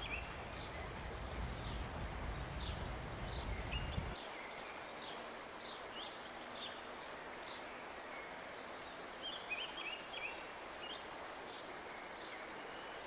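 Birds chirping and singing in short, high, repeated phrases over a faint outdoor hiss. A low rumble underneath stops suddenly about four seconds in.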